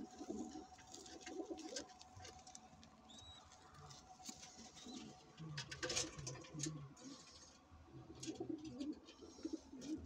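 Domestic pigeons cooing softly, a few short low coos in the second half, with scattered clicks and rustling.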